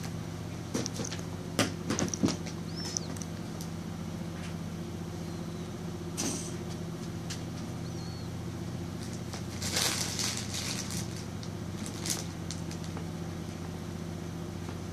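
Steady low hum with scattered knocks, taps and rustling from a baby's hands gripping and patting the rim of a clear plastic storage tote full of clothes; the sharpest knocks come about two seconds in and a burst of rustling comes about ten seconds in.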